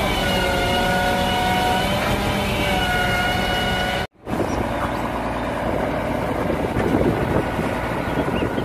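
Concrete mixer truck running, a steady rumble with a held multi-tone whine. About four seconds in it cuts off abruptly, and a second mixer truck is heard running, a rougher rumble with wind buffeting the microphone.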